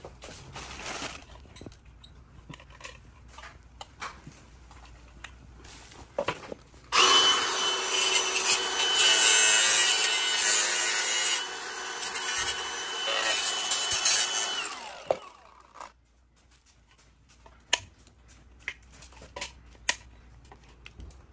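Cordless Milwaukee Fuel cut-off tool cutting an opening in a white PVC surface-mount socket box, a steady high whine with a loud cutting noise for about eight seconds, starting about seven seconds in and stopping about halfway through the second half. Light handling clicks come before and after.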